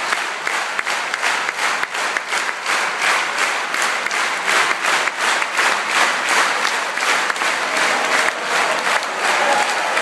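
A large concert audience applauding a curtain call: dense, steady clapping from a full hall.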